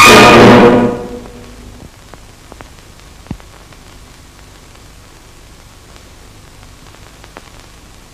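Brass-led orchestral music ends on a final chord about a second in. After it comes the steady hiss and crackle of an old optical film soundtrack, with a few faint clicks and one louder click about three seconds in.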